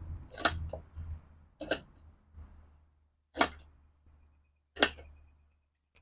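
Sharp metallic clicks, four of them at roughly one-and-a-half-second intervals, as a C-clamp is worked against the rim to break a motorcycle tire's bead.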